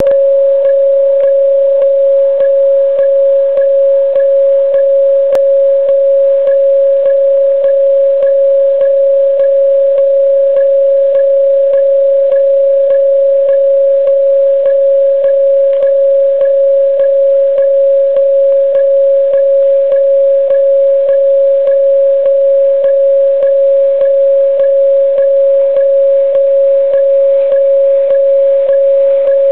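Railway level-crossing alarm ringing as a train approaches: a steady ringing tone struck in a regular beat of about one and a half strokes a second.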